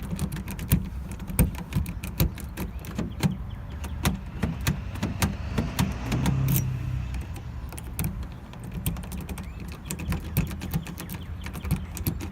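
Keys rattling with rapid, irregular metallic clicks as a freshly cut key is worked into a deeply recessed car lock, over a low steady hum.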